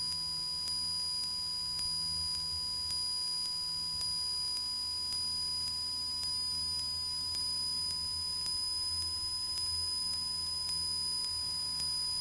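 Cessna 172 cockpit audio during the full-power climb after takeoff, as picked up through the aircraft's intercom: a faint low engine drone under steady, high electronic whining tones.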